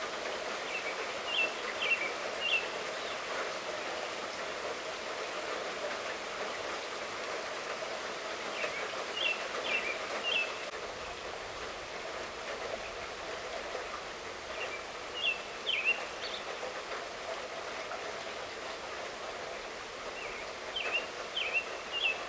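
Steady light rain falling, a constant hiss. A bird sings a short phrase of three or four quick notes four times, about every six seconds.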